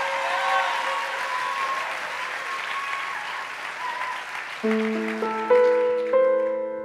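Audience applause dying away while a piano comes in about four and a half seconds in with slow, held chords, the start of a song's introduction.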